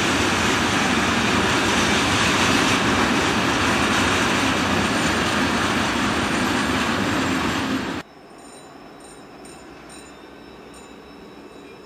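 Freight train carrying truck trailers rolling past with a loud, steady rumble of wheels on rails. The sound cuts off suddenly about eight seconds in, leaving only faint background sound.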